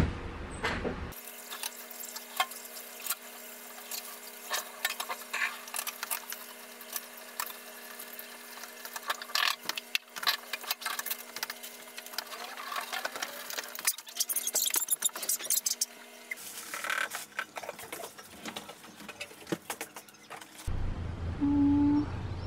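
Light clicks, taps and rustles of objects being handled and packed away while a room is tidied, over a steady faint hum.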